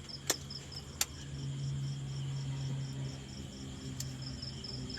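Cricket-like insect chirping in a steady run of short high pulses, about five a second. Two sharp clicks come in the first second, and a low steady hum sits under the middle part.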